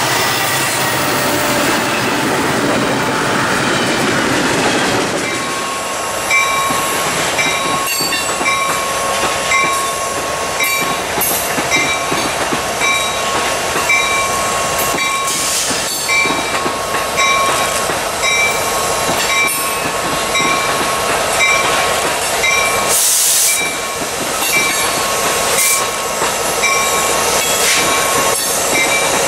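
Freight trains passing close by, led by EMD six-axle diesel locomotives, with the rumble of the engines and cars. After about five seconds a short high ding repeats about every two-thirds of a second over a steady high squeal.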